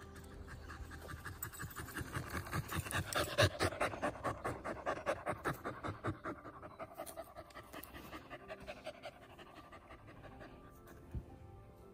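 A cockapoo panting quickly and evenly right at the microphone. The panting is loudest a few seconds in, then eases off.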